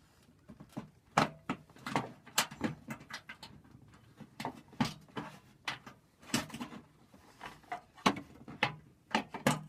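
Irregular clicks and knocks from a socket ratchet with an adapter being worked on a nut behind the car's fender, with tool and metal handling sounds.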